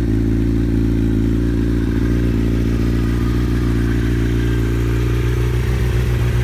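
Kawasaki Ninja's inline-four engine idling steadily through a Muzzy aftermarket exhaust.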